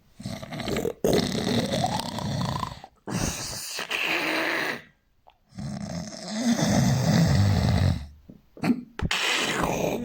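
Heavy human snoring: a run of about five long, loud, rough snoring breaths with short pauses between them.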